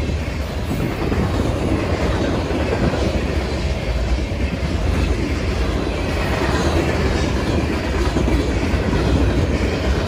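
Mixed freight train's cars rolling past close by: a steady rumble of steel wheels on the rails.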